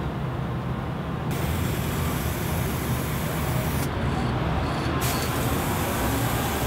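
Aerosol spray can spraying in two long bursts, the first starting about a second in and lasting over two seconds, the second following after a short break and running on near the end, over a steady low rumble.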